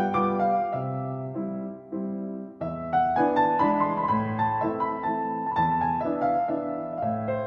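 Slow piano music, chords with a melody over them, easing off briefly about two and a half seconds in before the next phrase.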